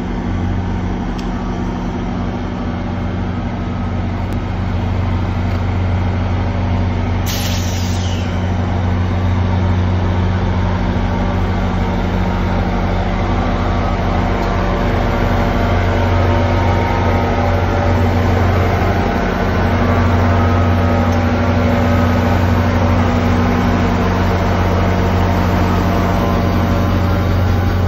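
EMD GP40PH-2 diesel-electric locomotive's 16-cylinder two-stroke engine running with a steady low drone as it passes close along the platform. A brief hiss comes about seven seconds in.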